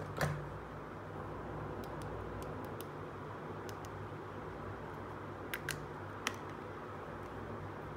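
Small hard plastic toy pieces clicking as they are handled and pulled apart: one sharp click just after the start, a few faint ticks, then three clicks in quick succession near the end, over a steady low hum and hiss.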